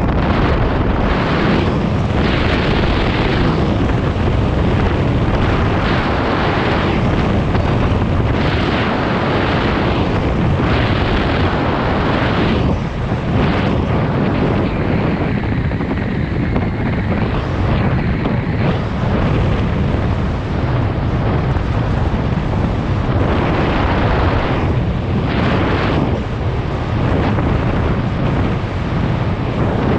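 Wind buffeting a GoPro Hero 7 Black's built-in microphone at riding speed: a loud, steady rumble that surges and eases in gusts every second or two.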